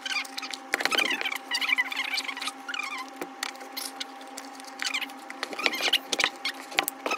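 Scraping, clicking and squeaking of a rigid cardboard gift box being handled, with fingernails tapping and scratching on it, as a tight-fitting fragrance bottle is worked loose from it. The squeaks and scrapes come in irregular bunches over a faint steady hum.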